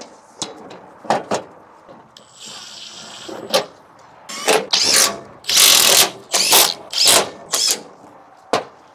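Makita cordless impact driver driving screws into a sheet-metal generator enclosure panel. It gives a short run of the motor about two seconds in, then about six bursts as the screws go in, the longest near the middle. A few knocks come from the panel being handled.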